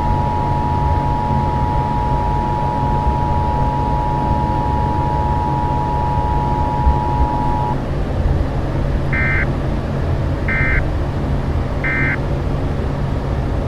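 Emergency Alert System attention signal: the steady two-tone alarm holds for about eight seconds and cuts off, followed by three short data-burst beeps marking the end of the alert message. A steady low hum runs underneath.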